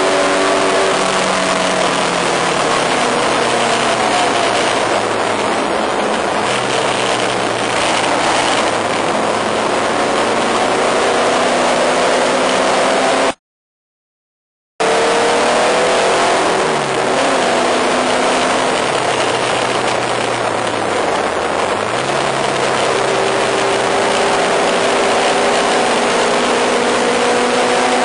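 1953 Porsche special's engine running hard at racing speed, heard from inside the car over loud wind rush, its pitch falling as the car slows for corners and climbing again under acceleration. The sound cuts out completely for about a second and a half partway through.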